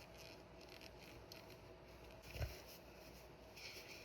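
Near silence in a small room, with one soft low bump about two and a half seconds in and a faint hiss starting near the end.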